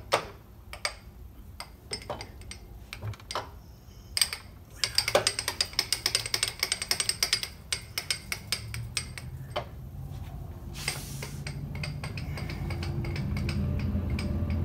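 Milling machine table hand crank being turned, its handle and lead screw clicking and rattling, with a fast run of clicks about halfway through. A low hum grows louder over the last few seconds.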